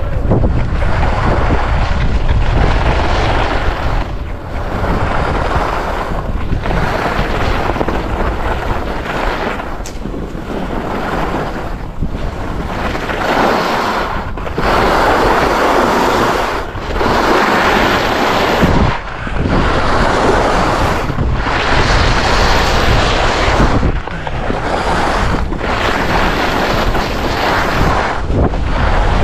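K2 alpine skis carving turns on hard-packed groomed snow, the edges scraping in swells that rise and fall with each turn, about every two to three seconds. Wind rushes on the microphone throughout.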